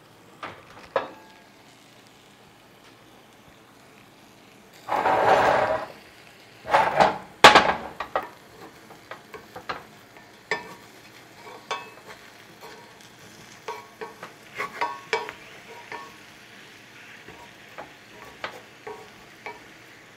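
Wooden spatula stirring and scraping sliced vegetables frying in a cast iron skillet, with sizzling and frequent light taps against the pan. About five seconds in there is a louder rush of noise lasting about a second, followed by two sharp, louder knocks.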